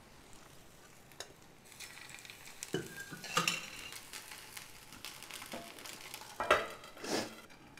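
Methi dosa batter sizzling faintly on a hot tawa, with a few soft knocks and scrapes of utensils. The loudest of these come near the end, as a bowl is brought over the dosa to cover it.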